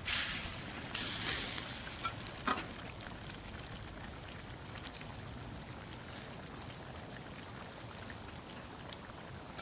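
Chicken karahi sizzling in the pan. The sizzle surges louder twice in the first two seconds, with a short click about two and a half seconds in, then settles to a steady sizzle.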